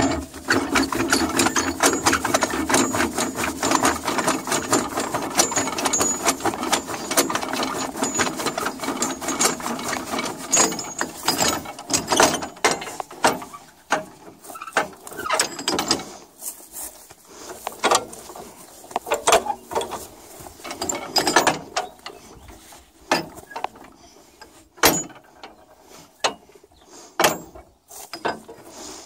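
Tractor three-point hitch being worked while a plough is attached: a fast metallic ratcheting clatter for about the first twelve seconds, then scattered metal clanks and knocks from the links, pins and chains.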